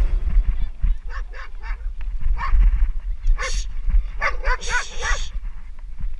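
A dog barking repeatedly, in quick runs of short barks, as it chases the downhill mountain biker and almost catches him, over a steady low wind rumble on the helmet-camera microphone.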